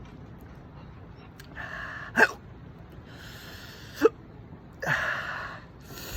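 A man hiccuping twice, about two seconds apart, with loud breaths between: hiccups set off by eating raw habanero peppers.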